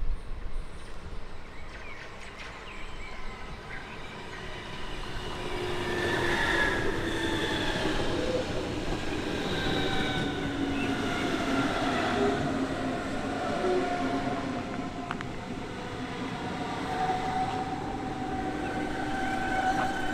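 Hamburg S-Bahn class 474 electric multiple unit approaching and passing close by. The rumble of its wheels on the rails grows louder about five seconds in, and its traction motors whine in several tones that glide in pitch.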